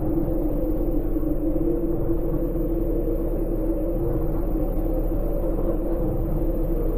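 Steady low drone: a rumble with a held tone a little above middle pitch and a constant deep hum beneath it, unchanging throughout.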